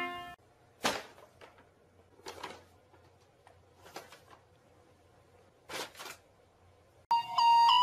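A paper bag crinkling in short, scattered rustles as a cat inside it moves across the floor. Music with a clear melody starts loudly about a second before the end.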